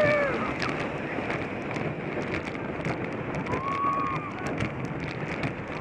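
Onboard a Schwarzkopf Double Looping steel roller coaster at speed: wind rushing over the microphone and the train rattling along the track. A rider gives a short shout at the start and a higher, held scream a little past the middle.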